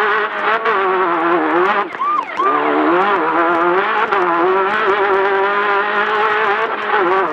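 Class 10 off-road race car engine running hard, its pitch wavering up and down as the throttle works, with a brief drop in revs about two seconds in.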